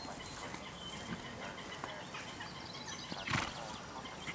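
Birds chirping in the surrounding trees, with a short, loud burst of noise about three seconds in.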